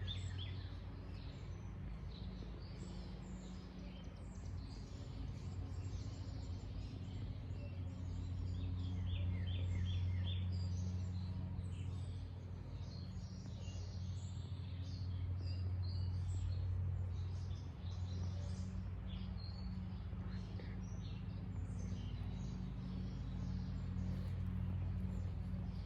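Several wild birds chirping and calling outdoors, with a quick run of repeated notes about nine seconds in, over a steady low hum.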